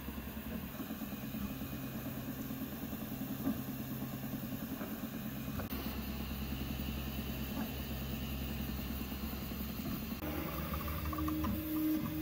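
Original Prusa i3 MK3 3D printer running, its stepper motors whirring steadily as the print head moves back and forth laying the top layer of a print. The motor tones shift about six and about ten seconds in as the moves change.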